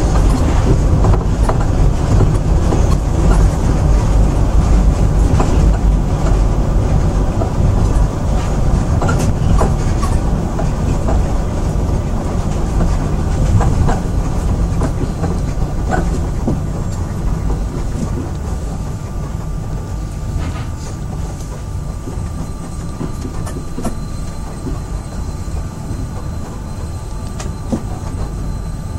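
Moscow Monorail rubber-tyred train running along its elevated beam, heard from inside the car: a steady low rumble with scattered clicks, gradually growing quieter in the second half.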